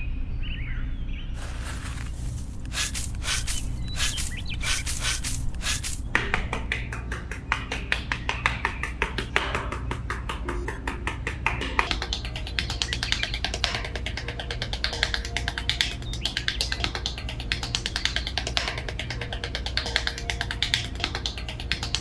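A small metal hand trowel scraping and scooping fine sand, a dense run of gritty scratches that grows busier about six seconds in, over quiet background music.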